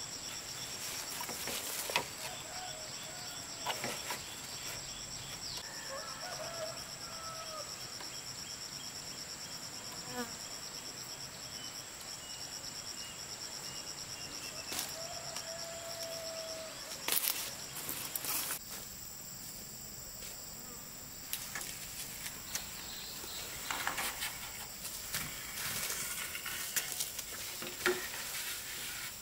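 Insects chirring steadily at a high pitch. One pulsing chorus cuts off about two-thirds of the way through while a thinner high whine carries on, with a few scattered knocks.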